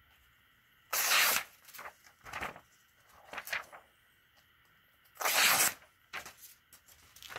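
CJRB Feldspar folding knife slicing through a sheet of paper in a sharpness test. Several short slicing strokes are heard; the two loudest come about a second in and just past five seconds.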